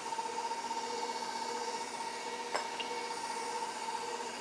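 KitchenAid stand mixer running at medium-high speed, around setting 4, its motor giving a steady whine as it beats thin cupcake batter while an egg is mixed in. A single light click comes about two and a half seconds in.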